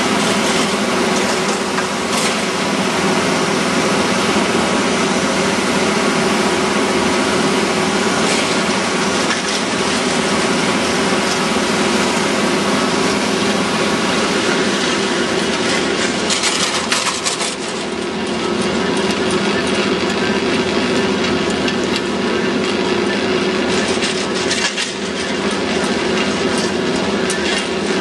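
Two-seat chairlift running: a steady mechanical hum and rumble from the lift's drive and moving haul rope. A couple of brief louder rushes of noise come a little past the middle and near the end.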